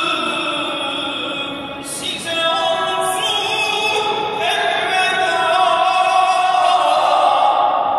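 An imam's solo male voice chanting in a mosque, unaccompanied, with long ornamented notes that bend in pitch. A note is held for the last few seconds. The voice is amplified through loudspeakers and echoes in the large domed prayer hall.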